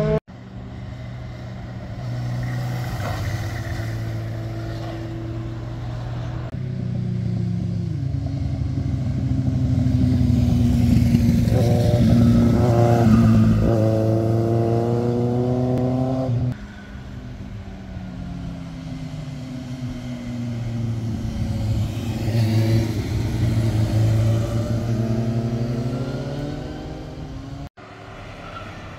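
Motorcycles riding through a hairpin bend one after another, their engines running with the revs rising and falling as they lean through the curve and accelerate out of it. The sound breaks off abruptly several times as one pass cuts to the next, and it is loudest as a bike passes close.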